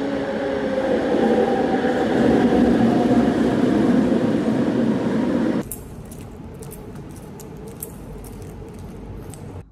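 Kuala Lumpur metro train pulling into an elevated station platform, its running noise swelling to a loud peak and then cut off suddenly about five and a half seconds in. After that, a quieter stretch of crackling clicks from a plastic carrier bag being handled.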